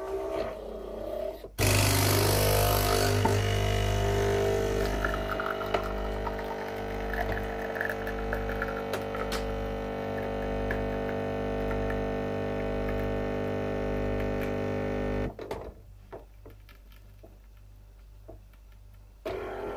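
Krups Nespresso capsule machine's pump humming steadily while brewing an espresso, with a hiss in its first seconds. The pump cuts off sharply about fifteen seconds in, leaving a few faint clicks.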